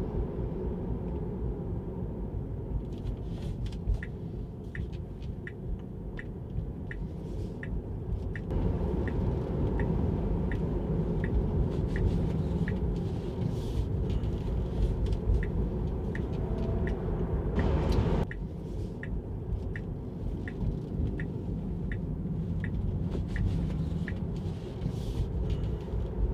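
Steady low road and tyre rumble inside a moving electric Tesla on autopilot. From a few seconds in, a regular light tick repeats about every 0.7 seconds, and there is a brief louder rush of noise around two-thirds of the way through.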